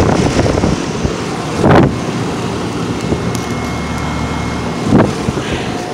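Outdoor central air-conditioner condensing unit running, a steady whir of its fan and hum of its compressor, with wind buffeting the microphone twice.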